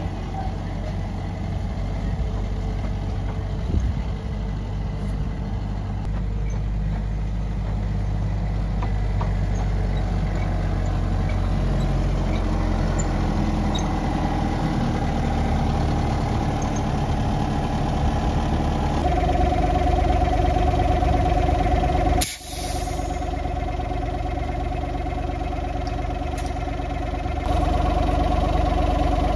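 The small diesel engine of a miniature railway locomotive built to look like a steam loco, running steadily close by. About two-thirds of the way in it grows louder and a steady higher whine comes in, as if it is opened up. It is cut off for a moment and then carries on.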